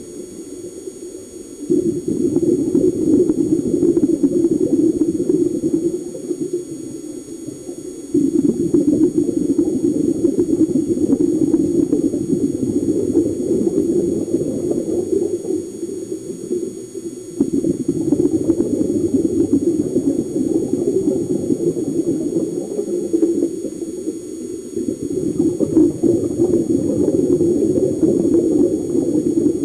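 Underwater sound picked up by a camcorder in its housing: a low, steady rushing noise that steps abruptly louder or quieter a few times.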